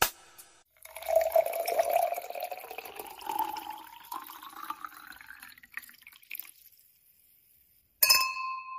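Wine being poured into a glass, with a rising pitch as the glass fills over about five seconds. Near the end comes a single clink of glasses that rings on.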